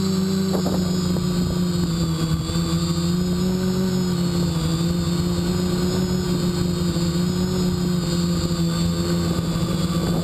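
Quadcopter's motors and propellers humming steadily, heard from a camera mounted on the craft itself, the pitch wavering slightly as the throttle changes. Rough wind noise on the microphone runs underneath.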